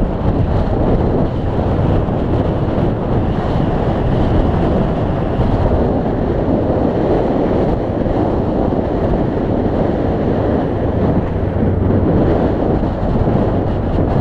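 Steady wind rush buffeting the microphone of a motorcycle on the move, with the Honda CB500X's parallel-twin engine running steadily underneath.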